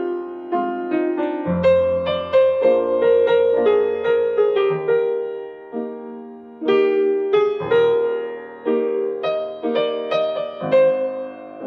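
Background piano music: slow, gentle melody over chords, notes struck and left to ring.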